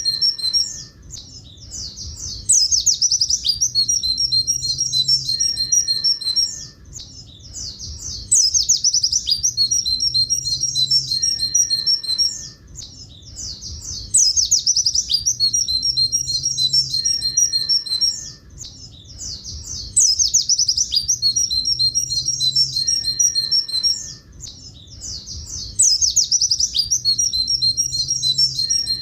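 Pleci buxtoni white-eye singing its long 'tulit tulit' horn-like song. Each phrase opens with a rapid burst of high twittering and runs on into strings of repeated two-note whistles. The same phrase repeats about every six seconds, five times over, as a looped song-training recording.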